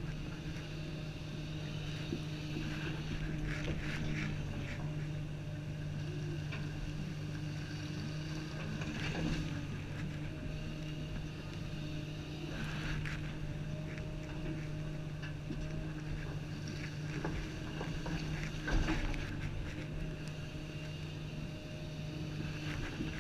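Komatsu 350 excavator's diesel engine running steadily under working load, heard from inside the cab, with occasional clunks and scrapes as the bucket works the dirt pile; the loudest knock comes near the end.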